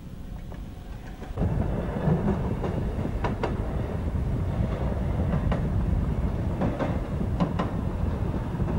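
Railroad speeder (motorized track inspection car) running along the rails: a steady engine rumble with sharp clicks, often in close pairs, as its wheels cross the rail joints. It gets louder about a second and a half in.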